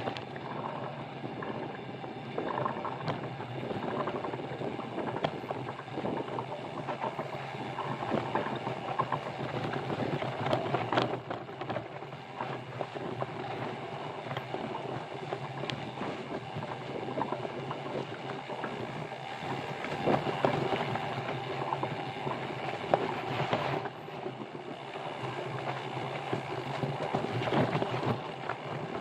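Mountain bike rolling over a rough trail: a steady rattling rumble of tyres and bike, with a few sharp knocks along the way.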